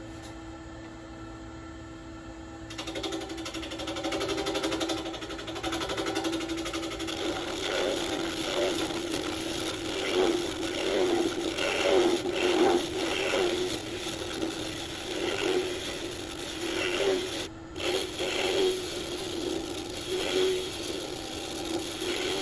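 Wood lathe running with a steady hum while a turning gouge cuts into a spinning walnut-and-epoxy vase blank. The cutting starts about three seconds in and comes and goes as rough scraping, loudest around the middle, with a brief pause about two-thirds of the way through.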